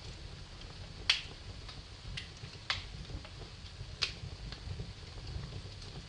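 Wood fire crackling in a fireplace: a few sharp pops, the loudest about a second in and then two more roughly every second and a half, over a steady low rumble of flames.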